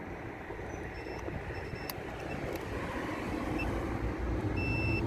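A multimeter's continuity beeper gives a few short, broken beeps, then a held beep near the end as the probes make contact across the wire. This confirms the wire between the clockspring connector and the BCM is intact. A low rumble underneath grows louder.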